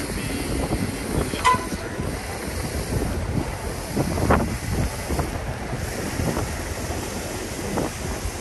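Busy city street ambience: a steady rumble of traffic with passers-by, and a brief high chirp about a second and a half in.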